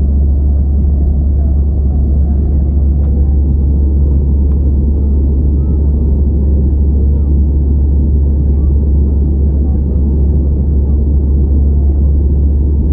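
Steady low rumble of an Airbus A320's engines and airflow, heard inside the passenger cabin.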